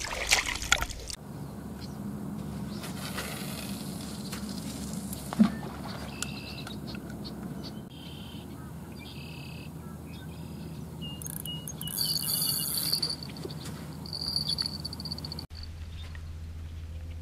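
Outdoor pond-side ambience: a steady low background with short, high chirps scattered through it, and a few sharp knocks near the start and about five seconds in.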